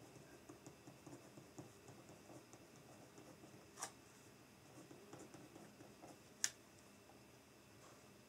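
Faint scratching of a pen writing on paper, a run of small soft strokes, with two sharper clicks: one just under four seconds in, the louder one about two and a half seconds later.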